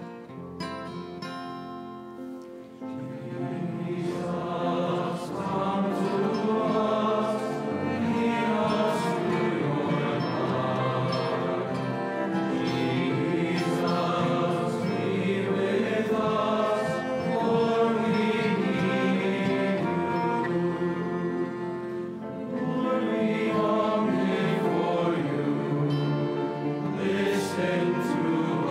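Men's choir singing a slow hymn with piano accompaniment; the sound fills out about three seconds in.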